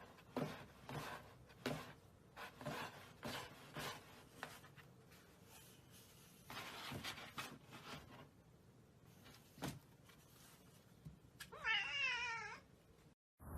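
A domestic cat meowing once near the end, a single wavering call of about a second, after a stretch of faint scattered taps and rustles.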